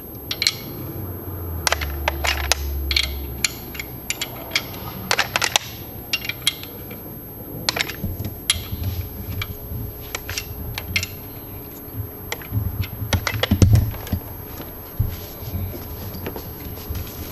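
Irregular metallic clicks and clinks of a combination wrench working the locked pair of nuts on a lower intake manifold stud, the nuts coming loose and being handled.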